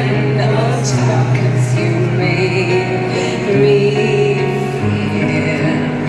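Live pop concert music with singing over held bass notes that change a few times.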